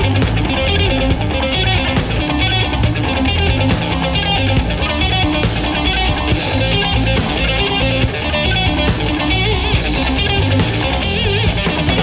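Rock band playing an instrumental passage, electric guitar to the fore over bass and drum kit, from a 1990 FM radio broadcast recorded on cassette tape.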